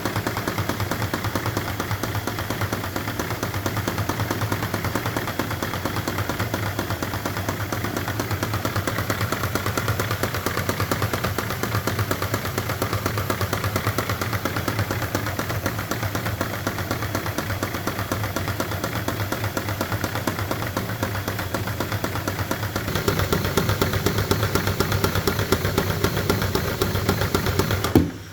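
Lego inline-two vacuum engine with SOHC poppet valves running: a fast, steady clatter of plastic parts over a low hum. It gets a little louder about 23 seconds in and cuts off suddenly near the end.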